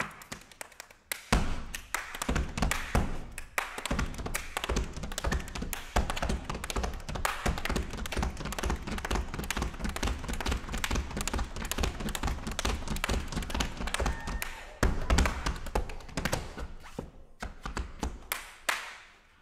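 Solo body percussion: a few separate hand claps, then from about a second in a fast, dense rhythm of claps and slaps on the body with deep thumps underneath. It stops shortly before the end.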